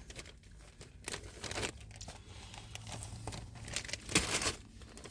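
Snack packaging crinkling and rustling in irregular handfuls as someone works at getting it open.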